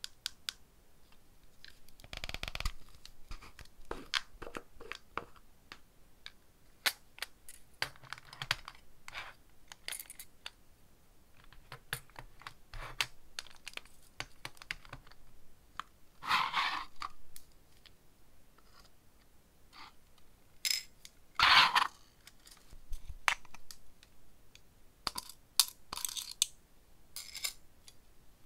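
Clear plastic compartment cases of nail rhinestones and metal nail parts being handled and set down: many sharp plastic clicks and taps, with a few louder rattles of the small pieces, the loudest about three quarters of the way through.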